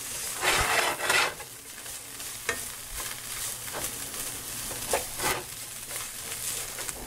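Garlic, ginger and scallions sizzling in a frying pan, with a few scraping strokes of a spatula stirring and breaking up the noodles in it.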